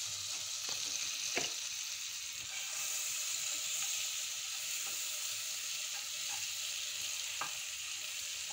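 Butter sizzling and bubbling as it melts in a pot, stirred with a wooden spatula. A steady hiss, with a couple of faint clicks.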